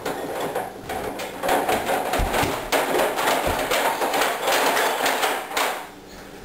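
Containers and jars knocking and clattering as items are shifted around on refrigerator shelves, with a couple of dull thumps among the rattling.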